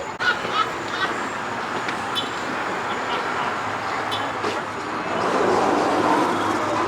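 Steady road traffic noise, swelling louder about five seconds in as a vehicle passes.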